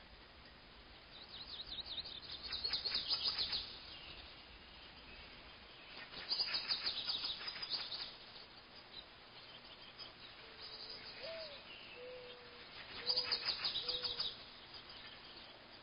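A songbird singing three times, each song a rapid high trill about two seconds long. In the latter half a second bird gives a few soft, low calls, one of them rising.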